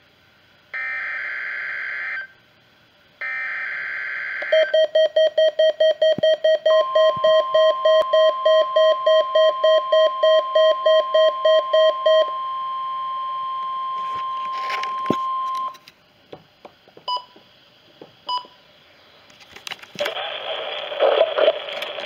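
Midland WR-100 NOAA weather radio receiving a required weekly test: two short screeching bursts of SAME header data, then the radio's rapid alert beeping, about four beeps a second, for several seconds. The steady single warning alarm tone joins in and runs a few seconds past the beeping. After a lull with two short beeps, the broadcast voice begins near the end.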